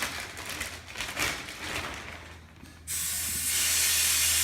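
Rustling and clicking of handling for about three seconds, then a steady hiss starts suddenly and carries on: helium gas flowing from a pressurized tank into a plastic bag.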